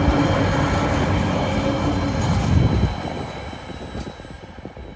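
Empty container flat wagons of a freight train rolling past at about 30 km/h, wheels rumbling and clattering on the rails with steady ringing tones over it. About three seconds in the noise drops off suddenly as the train goes by, then fades.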